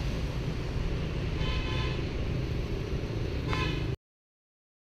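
Two short vehicle-horn toots over a steady low rumble of street traffic, the first about a second and a half in and a shorter one about three and a half seconds in; the sound cuts off suddenly about four seconds in.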